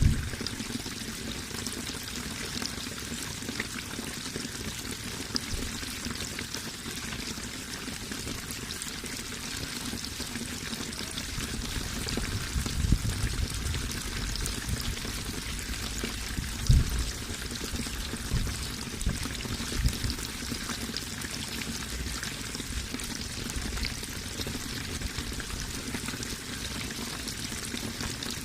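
Running water pouring steadily, with a few short deep thuds about halfway through.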